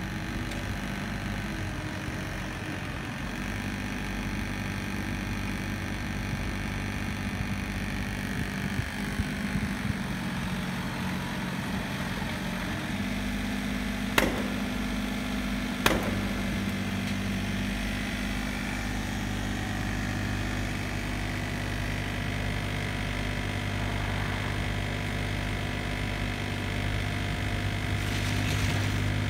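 Kubota mini excavator diesel engines running steadily, the engine note shifting slightly as the hydraulics are worked. About halfway through come two sharp knocks, a second and a half apart.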